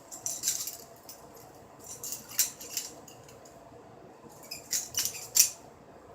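Balisong (butterfly knife) being flipped by hand, its handles and blade clacking together in three quick clusters of clicks.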